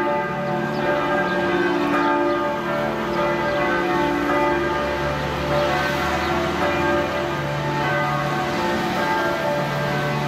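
Church bells of the Vilnius Cathedral belfry pealing. Several bells of different pitch ring together, their long tones overlapping and changing as different bells strike.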